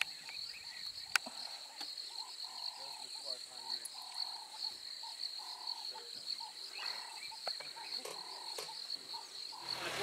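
Bush night chorus: a steady high-pitched insect trill, with frogs calling in short repeated notes about once a second. There is a single sharp click about a second in.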